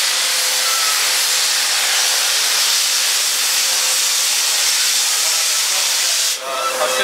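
D51 steam locomotive venting steam from its cylinder drain cocks as it pulls away, a steady hiss that cuts off suddenly about six seconds in.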